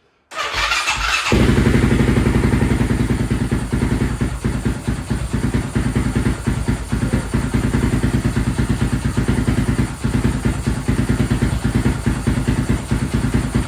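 Honda TRX700XX ATV's single-cylinder four-stroke engine cranked on the electric starter, catching about a second in, then idling with a steady, even pulse, its air filter taken out.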